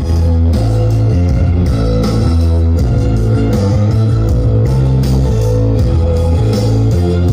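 Rock-style music with electric guitar and heavy bass notes, played loud through a big outdoor sound-system rig during a sound check.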